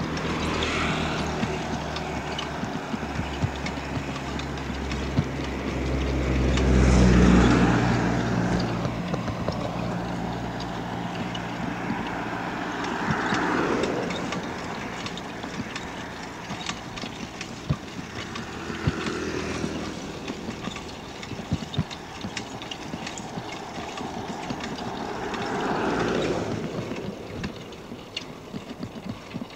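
Motor vehicles passing on the road. The first and loudest has a low engine hum that builds to a peak about seven seconds in and then fades, and several lighter whooshes of passing traffic follow. Scattered light clicks and rattles run underneath.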